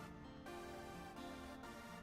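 Quiet electronic background music with steady held notes.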